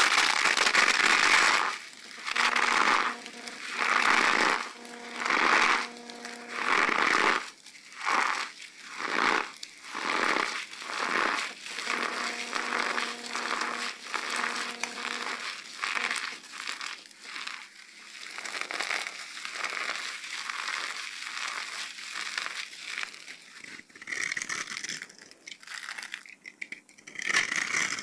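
Hands squeezing and crushing crumbly dry soap pieces coated in cornstarch, a crunchy crackle in repeated squeezes about every second and a half, then smaller, quicker crackles in the second half.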